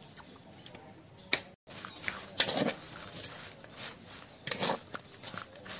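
Metal spoon clinking and scraping against an aluminium mixing bowl in a few irregular strokes while stirring a chopped, seasoned meat mixture. The sound cuts out completely for a moment about a second and a half in.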